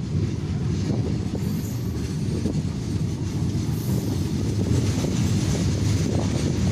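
Steady rumble of a moving passenger train's wheels on the track, with wind noise, heard from an open coach doorway.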